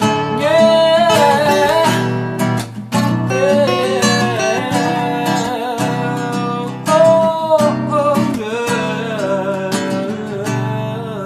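Background music: the closing bars of a song with acoustic guitar and a gliding melody line, beginning to fade out near the end.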